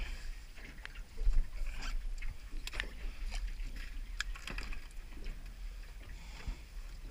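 Water slapping against an aluminium boat hull under a steady low rumble of wind on the microphone, with scattered sharp clicks and a louder knock about a second in.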